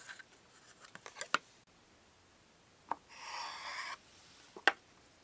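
Thin egg-crepe sheets being handled on a wooden cutting board: several light taps as the sheets are set down and stacked, and about three seconds in, a second-long scraping rub.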